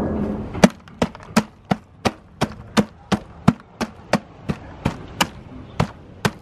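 Sledgehammer pounding dry ice pellets in a plastic cooler to crush them: a steady run of about sixteen sharp strikes, roughly three a second.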